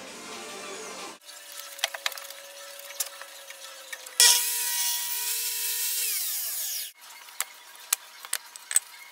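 Miter saw running, then cutting through a plywood sheet about four seconds in with a loud cut of nearly three seconds that stops abruptly. A few sharp clicks and knocks of wood pieces follow near the end.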